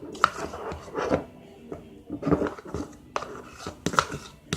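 Handling noise: an irregular series of sharp clicks and short rustling and knocking sounds, as of objects being moved and handled close by.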